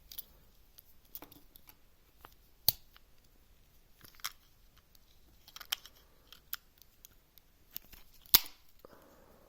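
Small scissors of a Victorinox Swiss Army knife being worked open and closed, their freshly oiled pivot giving irregular sharp clicks, two of them much louder than the rest.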